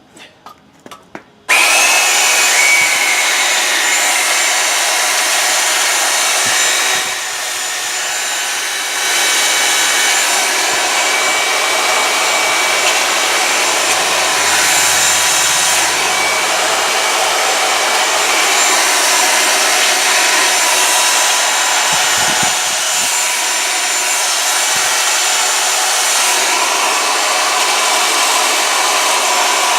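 Electric belt sander switched on about a second and a half in, then running steadily while sanding the edges of wooden stool legs, with a short lighter stretch near the quarter mark. It is loud.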